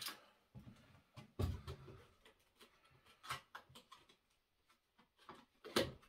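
A package being pulled open by hand: scattered crinkles and clicks of packaging, with a louder knock about a second and a half in and another just before the end.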